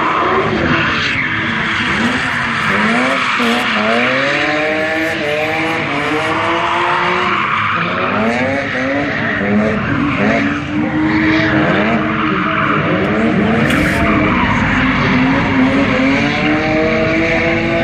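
Cars drifting, a Volvo 240 estate among them: engines revved hard, their pitch climbing and dropping again and again, with tyres squealing through long slides.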